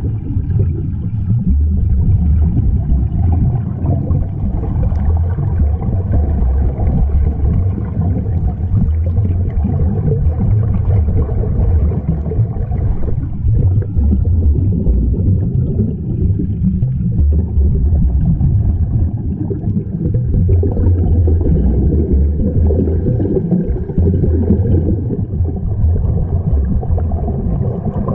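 Steady low underwater rumble and bubbling picked up by a camera in a waterproof housing, with air escaping from the sea-walk diving helmets.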